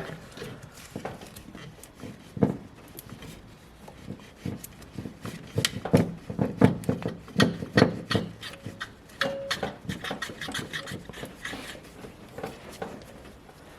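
Irregular metallic knocks, clunks and scrapes as a replacement alternator is worked into its mounting in the engine bay, the knocks coming thickest in the middle.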